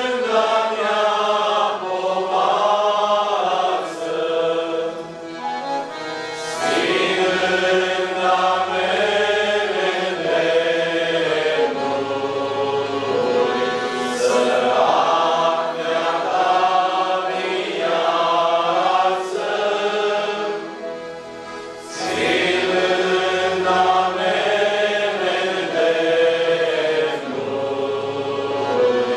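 Choir of mixed voices singing a hymn in phrases, accompanied by accordions and keyboard.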